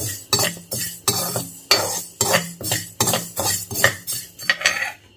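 Steel spoon scraping and stirring fenugreek seeds around a dry kadai as they roast, in quick repeated strokes about two or three a second, stopping near the end.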